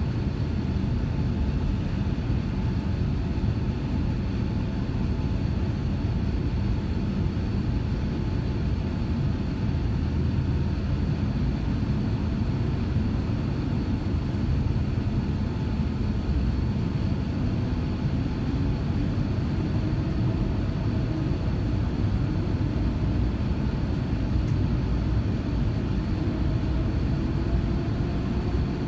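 Inside the cabin of an Airbus A350-900 taxiing onto a wet runway: a steady low rumble of the Rolls-Royce Trent XWB engines at taxi power, with faint steady tones above it. Over the last ten seconds or so a faint tone slowly rises in pitch.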